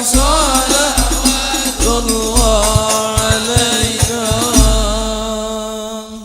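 Men singing a devotional salawat together over hadrah frame drums. The drum strokes stop about four and a half seconds in, and the singers hold a long final note that fades away.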